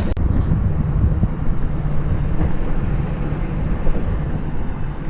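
Steady low rumble of an electric skateboard's wheels rolling over pavement, with wind buffeting the microphone.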